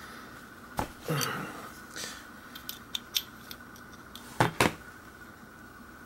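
Light metal clicks and clinks as a vintage Sachs Huret DuoPar rear derailleur is worked apart at its pivot bolt with a small socket: scattered ticks and a short scrape, with two sharper clicks in quick succession about four and a half seconds in.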